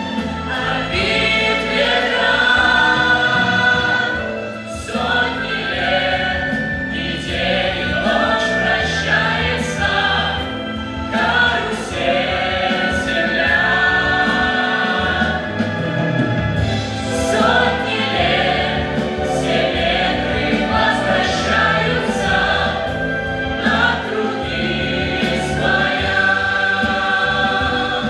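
A mixed vocal ensemble of male and female singers singing together into microphones, with music underneath.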